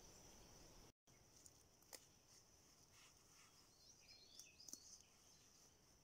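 Near silence: faint woodland background with a few soft bird chirps, mostly in the second half.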